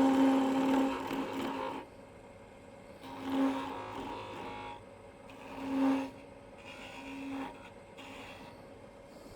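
Wood lathe spinning a black walnut blank as a turning gouge cuts it, giving a steady pitched whine. The cut is heavy at the start and eases off about two seconds in, then comes back in short passes around three and a half and six seconds.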